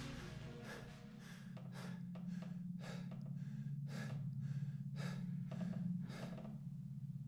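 A person breathing heavily and fast, about two breaths a second, over a steady low hum.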